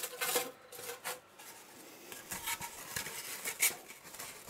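Foam blocks being handled and laid back onto a wooden work table: a string of light knocks and rubbing sounds, the loudest right at the start and about three and a half seconds in.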